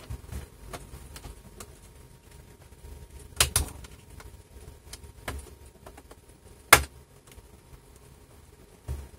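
Plastic retaining clips of a Lenovo Ideapad 330-17IKB laptop's bottom case snapping loose as a thin knife pries along the side seam: a few sharp clicks, a quick double click about three and a half seconds in and the loudest near seven seconds, with faint ticks and scrapes between.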